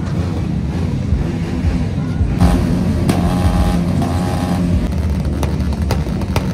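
A motorcycle engine running loudly and steadily, with a brief steady higher tone over it between about two and a half and four and a half seconds in.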